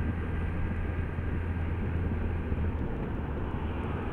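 Motorcycle engine running at a steady cruise, a constant low hum under the rush of wind and road noise.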